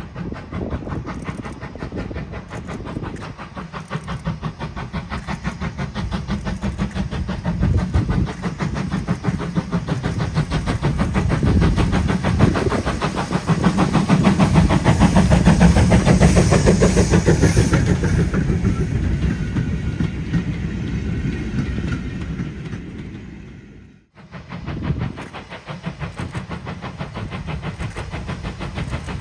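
LMS Ivatt Class 2MT 2-6-0 steam locomotive working a train, its exhaust beating rhythmically as it passes close by, loudest a little past halfway and then fading. After a sudden break about three-quarters of the way through, it is heard again working steadily as it approaches.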